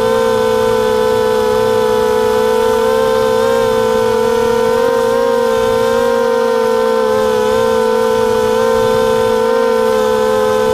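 Motors and propellers of a 250-size FPV racing quadcopter, a loud steady whine whose pitch wavers slightly up and down.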